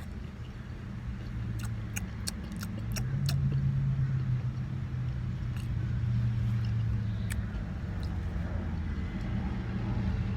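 Low rumble of a motor vehicle that swells for a few seconds in the middle, with a quick run of about six sharp clicks near the start.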